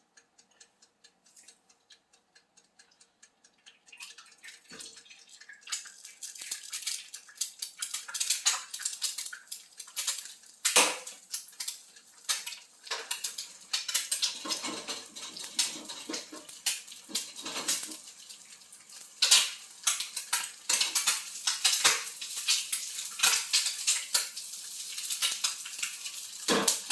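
Eggs frying in a pan, with a metal utensil clicking and scraping against it. The first few seconds hold only light ticks; from about six seconds in a steady frying hiss fills in under the clatter.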